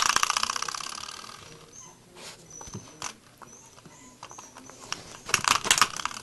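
Spring door stop flicked and twanging: a sharp boing that goes into a fast buzzing rattle and dies away over about a second and a half. A few more irregular twangs and rattles of the spring come near the end.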